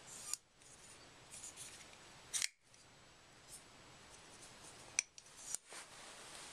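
ProTech TR3 manual folding knife with a titanium handle being opened and closed, its blade and lock giving four short metallic clicks, the loudest about halfway through and another about five seconds in.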